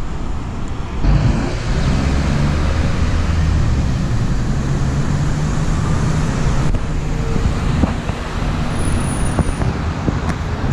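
Road traffic: a motor vehicle's engine running with a steady low drone over the rush of passing traffic. It swells up suddenly about a second in.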